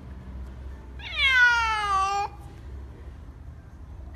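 A cat meowing: one long meow of about a second, starting about a second in and falling in pitch.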